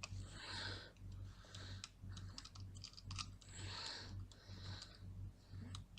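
Small screwdriver driving screws into a hard drive's metal case: irregular light clicks and short scraping bursts, over a low pulsing hum.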